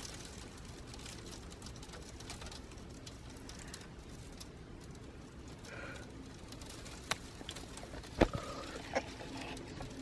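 Ice pellets falling and ticking on surfaces: a steady, fine pattering hiss. About six seconds in there is a short high call, and near the end a few sharp clicks, the loudest about eight seconds in.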